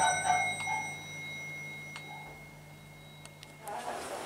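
A lift's arrival bell ringing on as a single high tone that slowly fades away over about three seconds, with a couple of faint clicks. Near the end the background noise rises.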